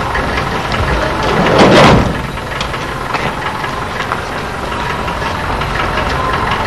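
Van engine idling with a steady rumble. About two seconds in comes a brief, louder rush of noise.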